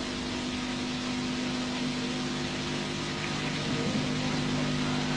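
Steady hiss with a low, even hum from an old recording's background noise during a pause in the recitation.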